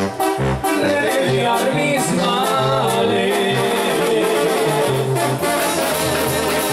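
Live Mexican banda music: a brass section of trombones over a tuba bass line in short separate notes, with drums.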